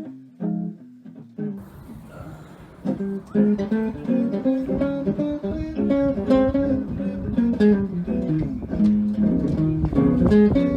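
Background guitar music: a plucked melody, sparse and soft at first, then fuller and louder with a bass line joining in after a couple of seconds.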